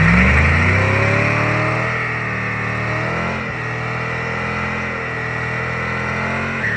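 Second-generation Chevrolet Camaro doing a burnout: the engine revs up hard and is held at high revs while the rear tyres spin and squeal on the concrete pad, its pitch dipping briefly about three and a half seconds in and again near the end.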